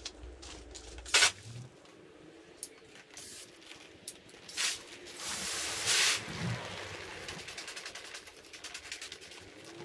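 Garden hose with a pistol-grip spray nozzle: a few short spurts of water and clicks in the first half, then a steady hiss of running water from about halfway through.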